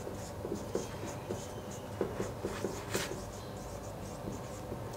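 Marker pen writing on a whiteboard: a quick run of short strokes as letters and figures are written.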